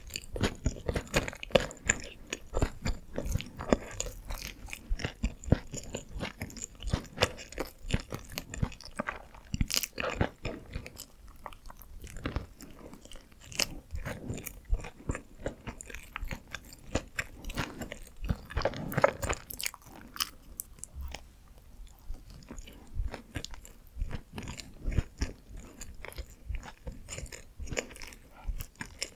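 Close-miked chewing and biting of Korean steamed buns (hoppang): a continuous run of short mouth clicks and smacks, with a few louder bites about ten and nineteen seconds in.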